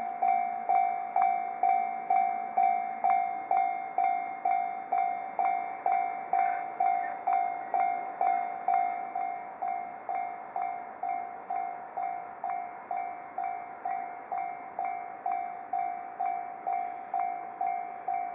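Japanese railroad crossing warning bell ringing steadily, a little over two strikes a second, each a bright clanging ding that dies away quickly.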